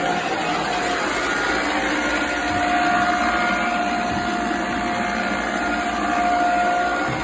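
Electric cylindrical-brush floor scrubber running steadily, its motor giving a constant whine over a rushing hum, which swells slightly twice. It is scrubbing cleaning solution up off the floor.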